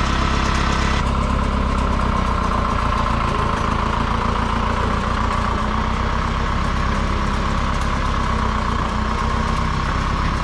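Engine of a homemade sawmill running steadily. A higher hiss drops away about a second in.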